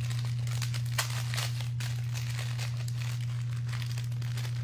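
Crinkling and rustling of packaging as brand-new alcohol markers are unwrapped and handled, with one sharp click about a second in, over a steady low electrical hum.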